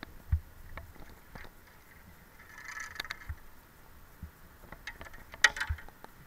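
Scattered light knocks, clicks and scrapes from a magnet-fishing rope being handled at the concrete canal edge, with a brief rustle a little before halfway and the loudest cluster of clicks near the end.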